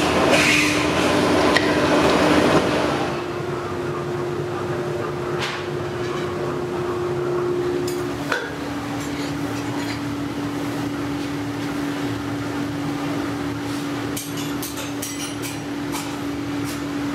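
Aluminium foundry ambience: a steady fan-like machine hum, with a louder rushing noise for the first three seconds while the melting furnace burns, and a few light metallic clinks near the end as molten aluminium is ladled into steel moulds.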